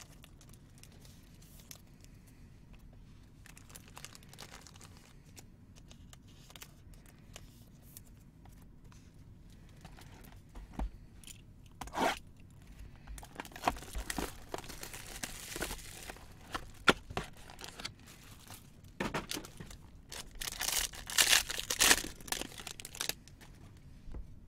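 Quiet at first. From about ten seconds in come clicks and plastic crinkling as a box cutter slits the shrink wrap on a sealed trading-card box, then louder tearing of the wrap near the end.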